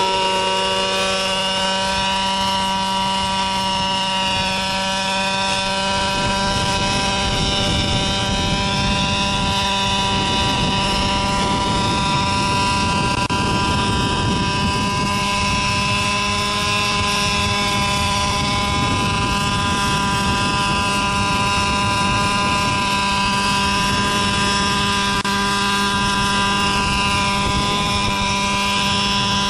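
Gas-powered JR Ergo radio-controlled helicopter with a B&H Hanson exhaust, its small two-stroke engine running at a steady pitch as it flies and hovers, with rotor noise.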